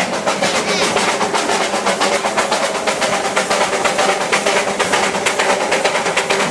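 Narrow-gauge steam train running, heard from an open-sided carriage. It has a rapid, even beat of about five pulses a second.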